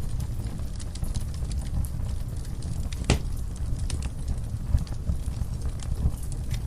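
Wood fire burning in a fireplace: a steady low rumble of the flames with scattered sharp crackles and pops, one louder pop about three seconds in.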